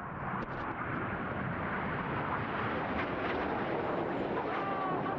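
Red Arrows' BAE Hawk jet trainers flying past in display formation: steady, rushing jet noise with no pitch to it.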